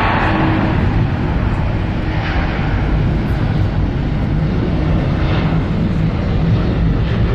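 Jet airliner's engines running as it rolls down the runway for takeoff: a steady, loud rumble and roar. Two whooshes, about two and five seconds in, are traffic passing on the road beside the airfield.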